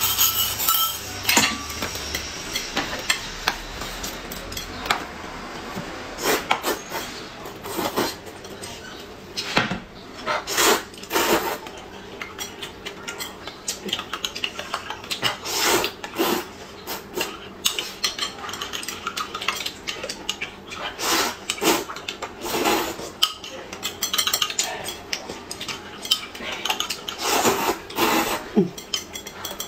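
Eating at the table: a metal spoon clinking against a glass cup and chopsticks tapping a plate, in irregular clinks, with noodles and soup being slurped.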